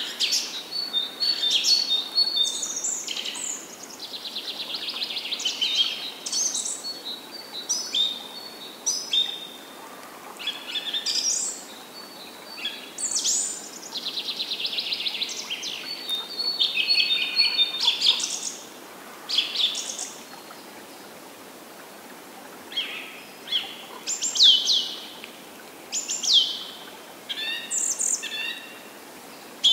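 Songbirds singing: a run of high chirps, whistled phrases and fast trills, over a soft steady background hiss. The song thins to a brief lull about two-thirds of the way through, then picks up again with sharp downward-sweeping notes.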